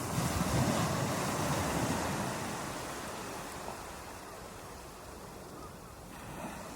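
Ocean waves breaking on a beach: one wave crashes at the start and washes out, fading over several seconds, and the next begins to build near the end.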